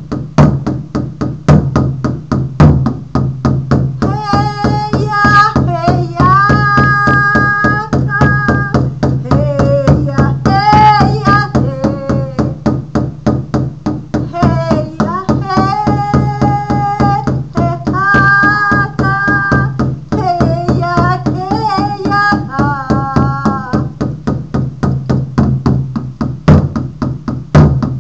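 Frame drum struck with a beater in a fast, even beat, with a woman chanting in long held notes over it from about four seconds in until a few seconds before the end.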